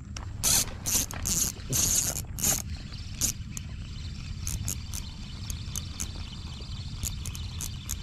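Fishing reel clicking and whirring, with a cluster of loud bursts in the first two and a half seconds, then scattered light clicks.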